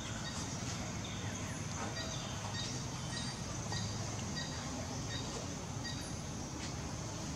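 Outdoor background of a steady low hum and a high hiss. From about two seconds in, a bird gives a run of short high chirps, about two a second, for three to four seconds.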